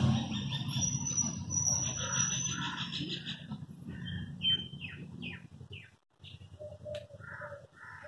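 Small birds chirping in quick falling notes, then a dove cooing in short repeated low notes near the end. A low rumble fades away over the first three seconds.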